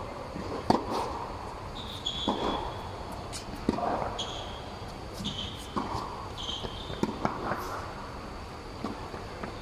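Tennis ball being hit by racquets and bouncing during a rally on an indoor hard court, a string of sharp pops with the loudest about a second in. Several short high squeaks of sneakers on the court come between the hits, and the pops ring on briefly in the large hall.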